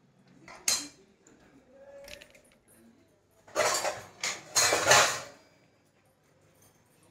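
Kitchen utensils clinking and scraping: a sharp clink under a second in, then a louder stretch of clattering and scraping around four to five seconds in.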